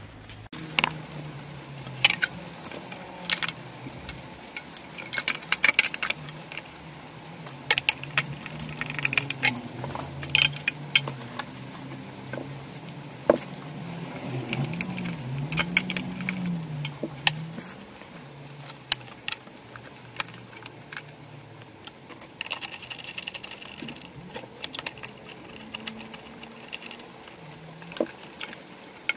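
Irregular sharp clicks and rattles of hand tools, plastic consumer-unit parts and wires being handled, with a faint low wavering hum underneath.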